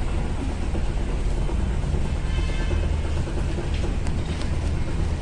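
Wind buffeting a handheld phone's microphone as the person holding it walks outdoors, heard as a steady, loud low rumble with a faint hiss above it and a few light clicks near the end.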